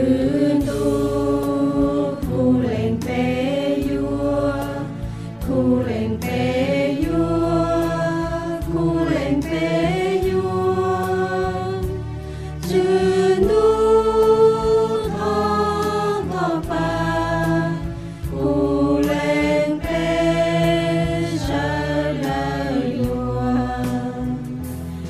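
Devotional singing in a slow chant: voices hold long notes that step up and down over a steady low accompaniment.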